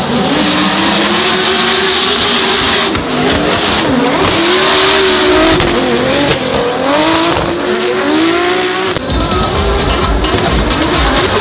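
Drift car's engine revving hard, its pitch rising and falling repeatedly as the throttle is worked, over the squeal of tyres spinning and sliding sideways. About nine seconds in, a deep rumble joins.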